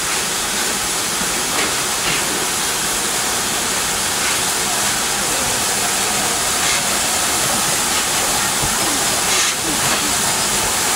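Steady loud hiss of steam from LMS Black Five steam locomotive 44767 moving slowly forward with its cylinder drain cocks open.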